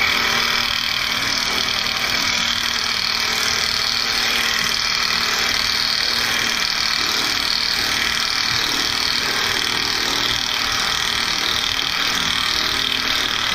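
Cordless power tool running without a break, turning the forcing screw of a harmonic balancer puller to draw the balancer off the engine's crankshaft.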